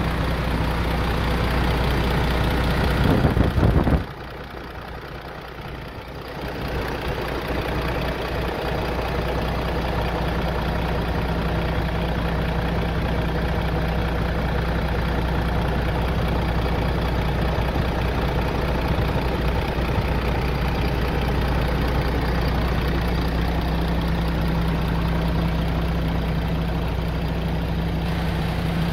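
MAN truck's diesel engine idling steadily. About three seconds in there is a loud rumbling surge, then the sound drops lower for about two seconds before the steady idle returns.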